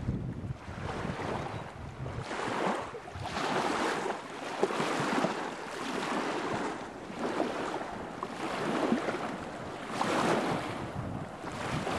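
Small wavelets of river water lapping and washing over a sandy shore, swelling and receding every second or two.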